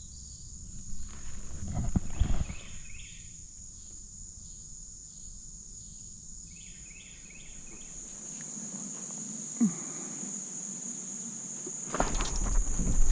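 Insects calling, likely crickets: a steady high-pitched drone with short groups of pulsed chirps now and then. There are a few low bumps about two seconds in, and louder rustling near the end.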